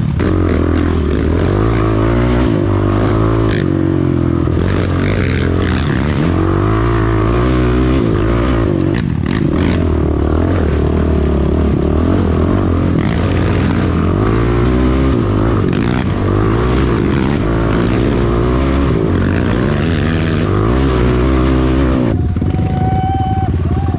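Quad (ATV) engine heard up close from on board, running under load on a dirt trail, its note rising and falling with the throttle. About two seconds before the end it drops to a lower, steadier note.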